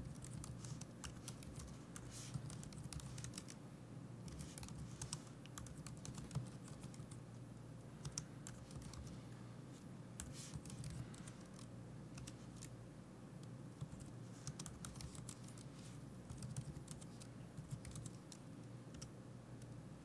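Typing on a computer keyboard: faint, irregular runs of keystrokes as terminal commands are entered.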